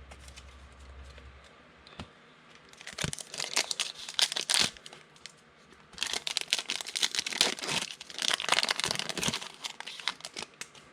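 Trading-card pack wrapper crinkling and tearing as it is opened, in two bouts of rapid crackling, the second longer.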